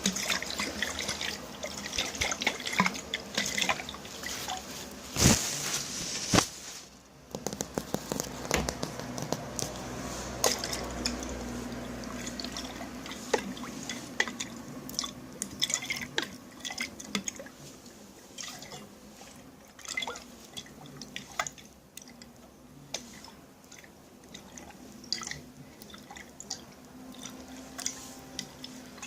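Liquid dripping and splashing in a container for ASMR: many small irregular drips, with a louder splash about five seconds in.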